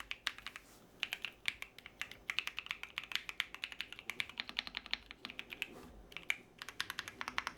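Typing in quick bursts on a Keychron Q6 Max mechanical keyboard with banana switches, with a short pause about a second in and another near six seconds in. The keystrokes are louder and more pronounced than on the Hall Effect version of the board.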